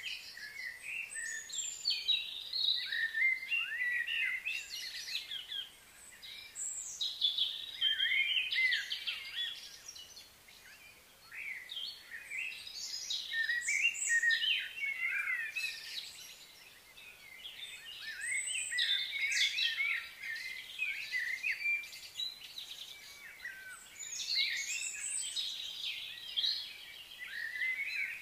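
Several wild birds chirping and singing over one another in a continuous chorus of short, high chirps and whistles, with brief lulls about ten and sixteen seconds in.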